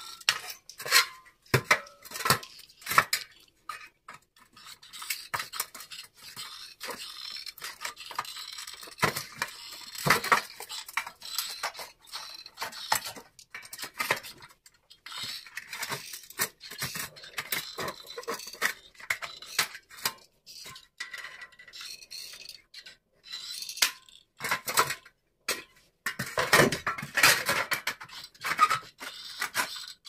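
Aviation tin snips cutting galvanized sheet-steel cable trunking: a run of sharp, irregular metallic snips and crunches as the blades bite and close through the metal. A few louder knocks near the end.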